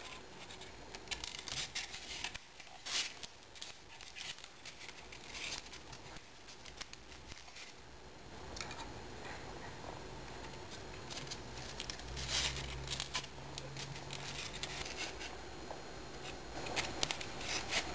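Hands handling tape, paper-clip wire and a styrofoam base: light scattered clicks, rubbing and crinkling. Near the end the homemade single-coil electric motor starts, its magnet-wire coil spinning and clicking in its paper-clip supports.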